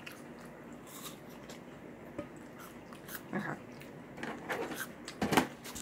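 Quiet chewing and mouth sounds, then soft knocks and rustles of a hand handling the camera close to the microphone, loudest near the end.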